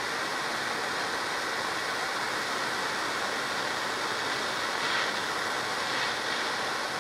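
Propane torch burning with a steady hiss.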